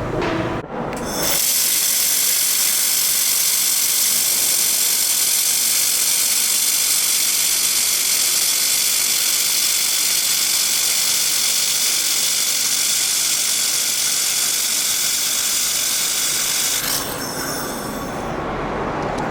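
Laser welding machine running: a loud, steady hiss that starts about a second in and cuts off near the end.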